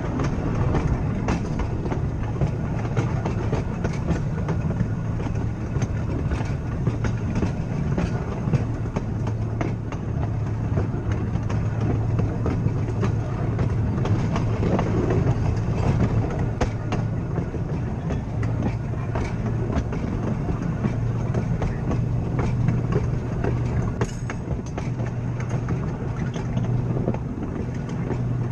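Blackpool "Boat" electric tram car running along the track, with a steady low hum under frequent short clicks from the wheels on the rails.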